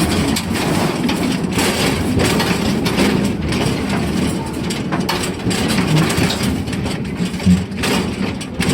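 Narrow-gauge forest-railway steam train heard from on board while running on the track: a steady rumble of wheels on rail with frequent clanks and rattles from the cars.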